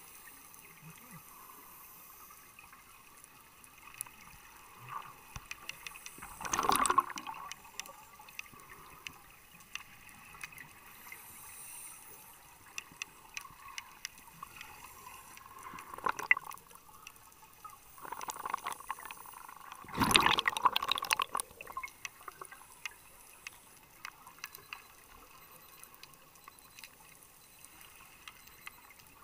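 Underwater scuba breathing: exhaled bubbles gush from a diver's regulator in loud bursts, about 6.5 and 16 seconds in and for about three seconds from 18 seconds. Between the exhalations there is a faint steady water hiss.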